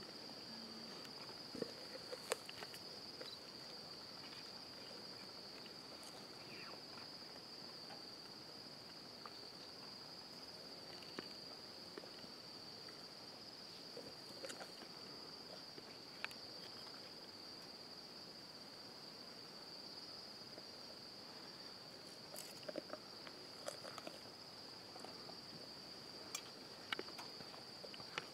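Night insects trilling in one steady high chirr, with scattered faint clicks and crunches from a leopard chewing on a warthog carcass.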